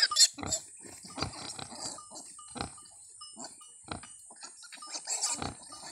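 A nursing sow and her suckling piglets grunting: short, irregularly spaced grunts, the loudest right at the start, with a few small high squeaks. A steady high-pitched hiss runs underneath.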